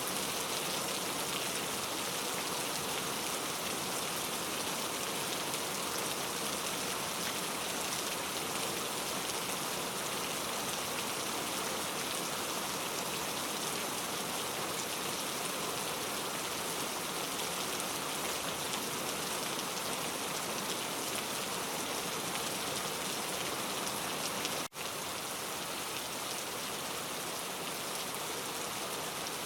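Steady, heavy rainfall: a dense, even hiss of countless drops pattering on surfaces, with a momentary gap near the end where the sound briefly cuts out.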